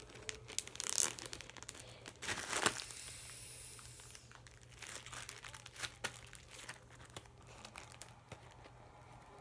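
Plastic zip bag crinkling and rustling as slime is handled in it, with irregular sharp crackles and clicks.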